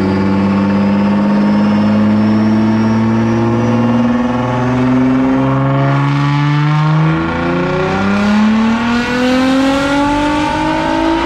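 2017 Nissan GT-R's twin-turbo V6 making a wide-open-throttle pull on a chassis dyno, under load, its note climbing steadily in pitch as the revs rise.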